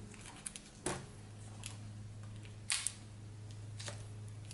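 Small clicks and ticks of fingers working a laptop's tiny display-cable connector and its tape, the loudest a sharp double click a little past halfway, over a steady low hum.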